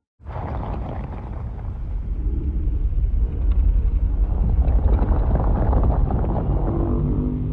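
Legendary Godzilla monster sound effect: a deep, steady rumble that starts abruptly out of silence, with a fine rapid rattle running through it, like a low growl.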